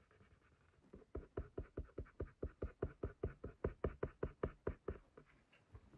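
Pencil scribbling on paper in short, quick, pressed-hard shading strokes, about five a second, starting about a second in and stopping near the end.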